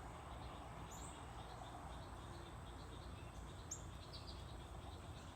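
A few faint, short bird chirps, scattered and high-pitched, over a steady low outdoor background rumble.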